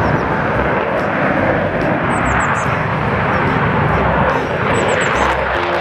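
Fighter jet taking off, its engines at takeoff power: a loud, steady jet roar as it lifts off the runway.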